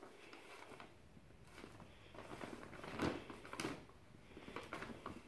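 Brown paper bag crinkling and rustling in irregular bursts as a cat squirms inside it and gets to its feet with its head still in the bag, loudest about three seconds in.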